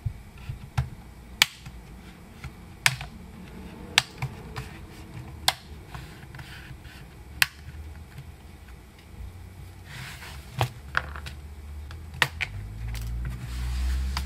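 Plastic snap-fit clips of a Lenovo ThinkPad L13 Gen 2's bottom cover popping loose one after another as a plastic pry tool works along the seam: a dozen or so sharp clicks a second or two apart. Over the last few seconds the loosened cover is handled and rubbed against the chassis.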